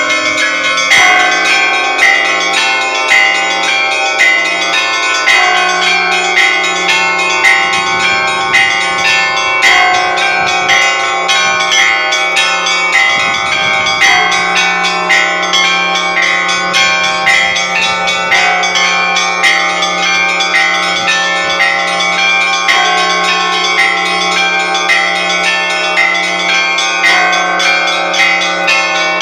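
The new bells of an Orthodox cathedral ringing a continuous peal: smaller bells struck in a quick repeating pattern with roughly one accent a second, over the hum of a larger bell. The low hum drops out for about a second near the middle, then returns.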